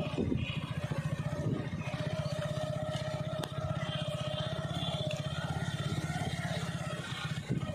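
Motorcycle engine running steadily at low speed while being ridden, with an even, fast low pulse and a steady hum.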